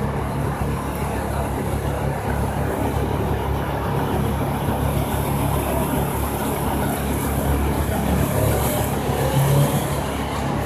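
Jaguar XE S's supercharged V6 engine running as the car drives through a cone course, a steady hum that grows a little louder near the end.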